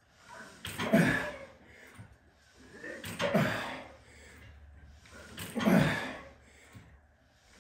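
A man's deep, heavy breaths, one about every two and a half seconds: three loud rushes of air, each dying away within a second, with quiet between.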